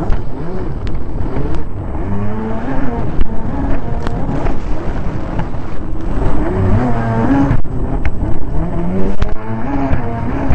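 Racing jet ski's engine running hard heard from an onboard camera, its pitch rising and falling again and again as the throttle changes, over a heavy rumble of water and wind. Spray and sharp knocks hit the microphone throughout.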